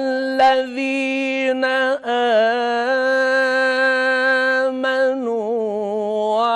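A man's solo voice reciting the Quran in the melodic tajweed style, holding long sustained notes with slow ornamental turns in pitch. There is a brief break for breath about two seconds in.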